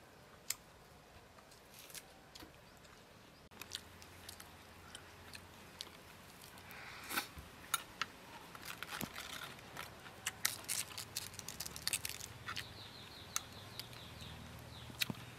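Scattered small clicks and crisp crackles, sparse at first and busier from about halfway: a metal spoon tapping and scraping in a ceramic bowl of dipping sauce, and crisp raw cabbage leaves being handled and dipped.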